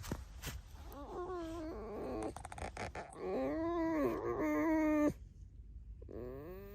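Pet fox squeaking: a series of drawn-out, whiny pitched calls that rise and fall in pitch, with a quick run of clicks between the first calls and a short pause before a final rising call.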